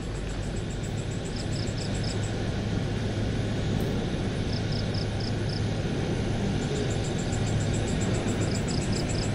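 Steady low rumble and hiss of open-air night ambience, with three short runs of high chirps about three and a half seconds apart.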